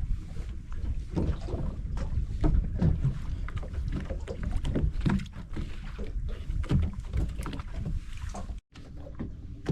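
Small boat rocking at sea, with wind buffeting the microphone: a steady low rumble broken by irregular knocks. The sound cuts out for a moment near the end.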